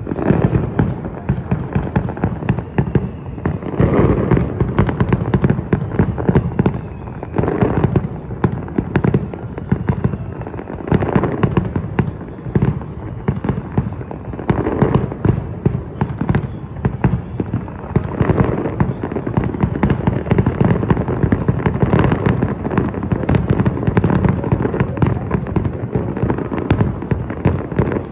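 Fireworks display: a dense, continuous run of bangs and crackling, with heavier booms every few seconds.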